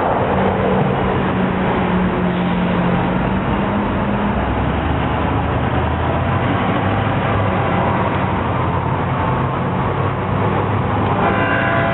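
Road vehicles passing close by, a steady loud mix of engine and tyre noise. A pitched tone with several overtones comes in about a second before the end.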